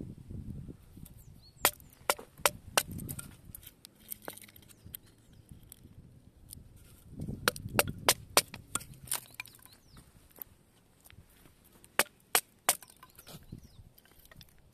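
Bushcraft knife chopping into wood for small pieces: sharp knocks in three bursts, about four blows near the start, a quicker run in the middle and three blows near the end.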